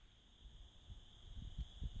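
Quiet outdoor ambience in the pause between rifle shots: a steady high-pitched drone with a few faint low knocks in the second half.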